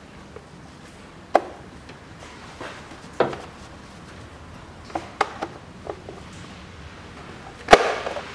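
Plastic engine cover of a Chevrolet Cruze's 1.8 Ecotec engine being worked off its mounts by hand: a series of short sharp plastic clicks and knocks, the loudest near the end.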